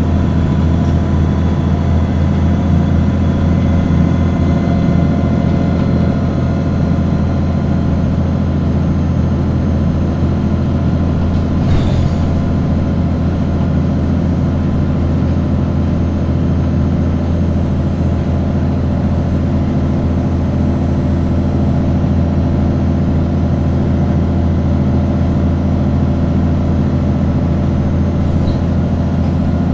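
Cummins ISBe5-225B diesel engine of an Alexander Dennis Enviro200 Dart 10.4m bus running steadily at an even pitch, with a brief click about twelve seconds in.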